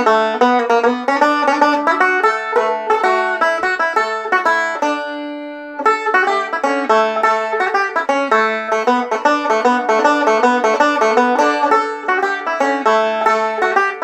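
Deering Eagle II banjo played solo, a quick run of picked notes. About four and a half seconds in, a chord rings out and fades for just over a second, then the rapid picking starts again.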